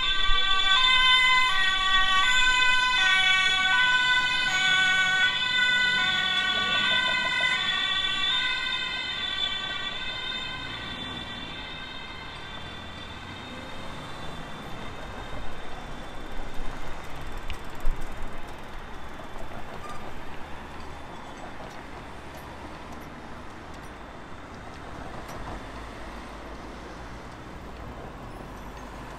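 Two-tone emergency-vehicle siren alternating between two notes, fading away over the first ten seconds or so, then steady city street and traffic noise with a few louder knocks.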